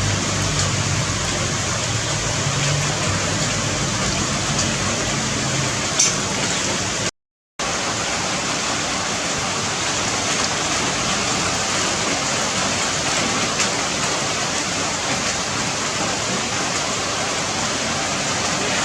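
Steady rushing hiss of water, even and unbroken apart from a brief cut-out about a third of the way through.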